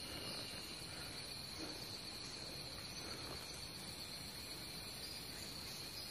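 Insects chirring steadily in one constant high-pitched note.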